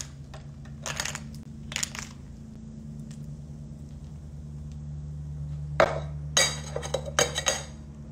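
Ice clinking and knocking in a metal cocktail shaker and against a tall glass of ice as a shaken cocktail is poured out. There are a couple of single clinks early on, then a quick run of clinks and knocks near the end, over a steady low hum.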